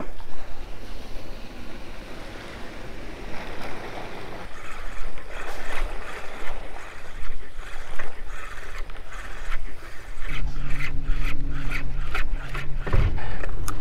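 Wind and water noise around a small boat on open sea. Sharp clicks come in a run in the second half, a steady low hum starts about ten seconds in, and there is a single thump near the end.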